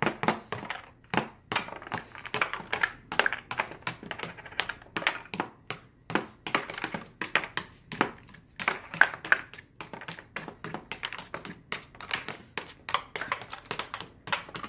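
Round cardboard game tokens being punched out of a punchboard sheet by fingers: a quick, irregular run of sharp clicks and pops, several a second.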